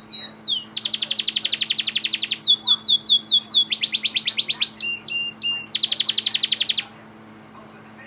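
Timbrado canary singing: fast rolling trills alternating with runs of short falling notes, the song stopping about a second before the end. A faint steady low hum lies underneath.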